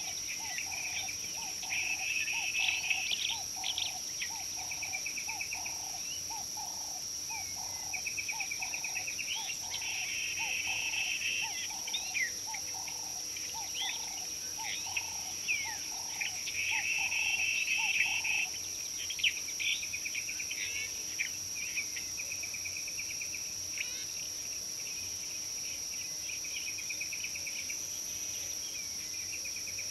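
Savanna insects keep up a steady high-pitched drone while birds call over it with quick chirps and short repeated trills. A lower note repeats about once every 0.7 s and stops a little past halfway.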